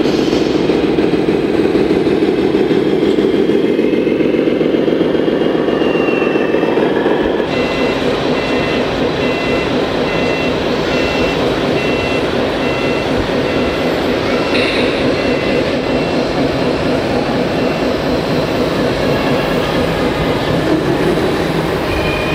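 Radio-controlled scale trucks' sound modules playing a running diesel truck engine. Partway through, a reversing beeper sounds a repeated two-pitch beep for several seconds.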